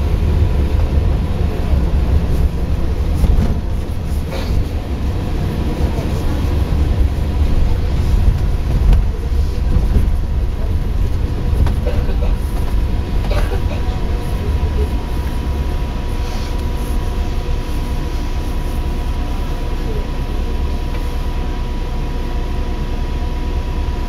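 Steady low rumble of a bus's engine and tyres heard from inside the passenger cabin, with a faint steady high whine over it.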